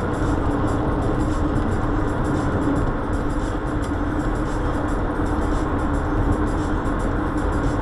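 Steady road and tyre noise with a constant drone, heard inside a car cruising at highway speed.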